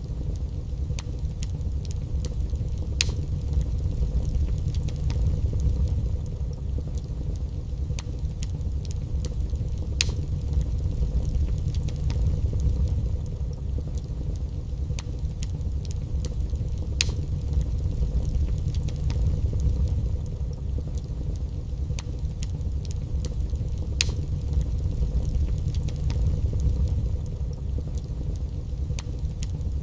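Wood fire burning in a fireplace: a steady low rumble of the flames with frequent sharp crackles and pops from the burning logs, a few of them louder.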